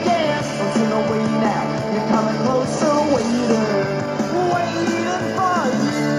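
Rock music with singing and guitar playing from a Sony WM-F102 cassette Walkman through a small external speaker.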